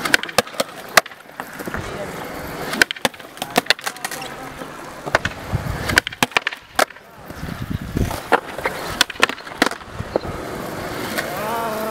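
Skateboard wheels rolling on concrete, with several clusters of sharp clacks as the board pops and strikes and lands on a concrete ledge.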